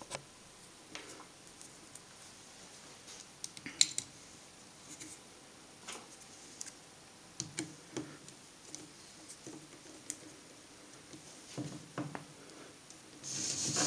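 Scattered small clicks and taps of a screw and screwdriver being handled over a metal workbench, the sharpest click about four seconds in. Near the end comes a brief scrape as the screwdriver bit works on the brush-holder screw.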